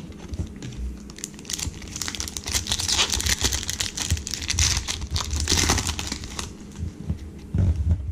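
Plastic trading-card pack wrapper being torn open and crumpled: a dense crackling rustle that swells from about a second and a half in and eases off after about six seconds, with handling thumps.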